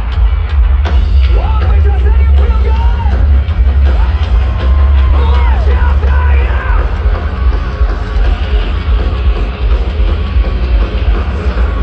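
Loud live rock music: a band playing with heavy, booming bass under a voice singing and yelling.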